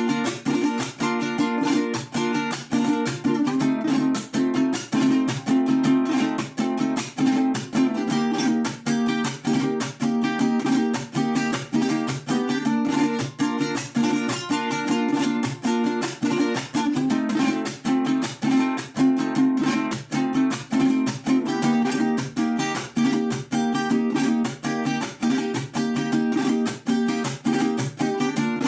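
Mexican vihuela strummed in a steady, quick rhythm, playing chords.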